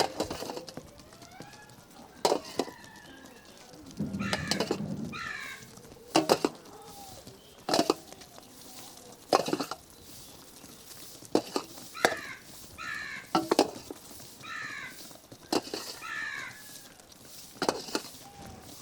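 Crows cawing in short falling calls, in groups of two or three. Sharp clatters cut in every second or two.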